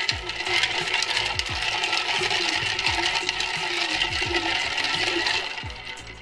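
Long bar spoon stirring ice cubes in a large glass drink dispenser: fast, continuous clinking and rattling of ice against the glass, stopping about five and a half seconds in.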